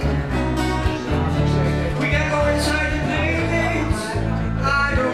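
A band playing a country-tinged rock song, with a singing voice, a steady bass line and guitar.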